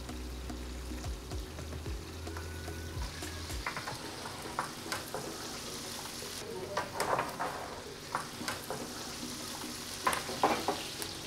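Lamb fırın kebab sizzling in a metal tray in a wood-fired oven: a steady frying hiss of fat and juices with scattered short pops. A low hum stops about three and a half seconds in.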